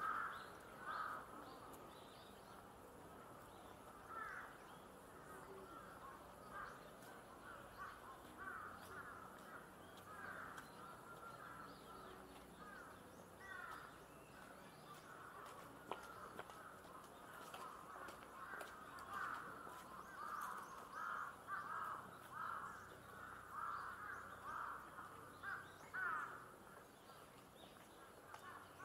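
Crows cawing, many short calls in a row, coming thickest in the second half.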